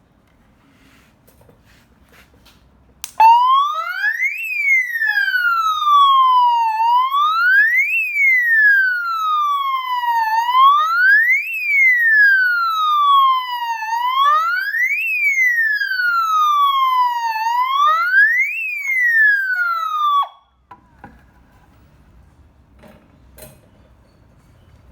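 KM-60WCS 220 V, 60 W mains-powered alarm siren wailing: a quick rise then a slower fall in pitch, repeating about every three and a half seconds. It comes on about three seconds in and cuts off suddenly about seventeen seconds later.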